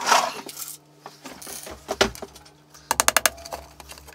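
Hammer driving a small nail through a 12 mm MDF panel into the box side below: a quick run of about six light taps about three seconds in. Before that there is a rustle and a single knock.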